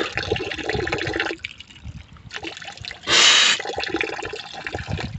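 Spring water running and splashing, with a short, louder rush of noise about three seconds in.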